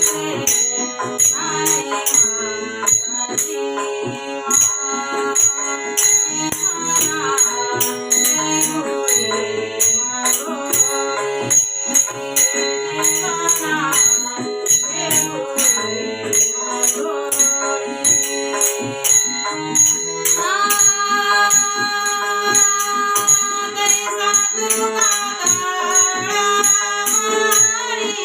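Music: a melodic instrumental passage over a steady, evenly spaced rattling percussion beat. The texture changes about twenty seconds in, to held notes.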